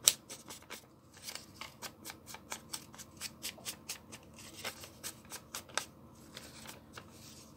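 Wooden-handled ink-blending tool dabbed again and again against the edges of a sheet of paper: quick dry taps, about four or five a second, that thin out after about six seconds.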